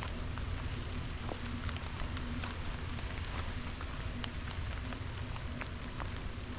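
Light rain falling on leaves, a steady hiss with scattered individual drops ticking close by, over a steady low rumble.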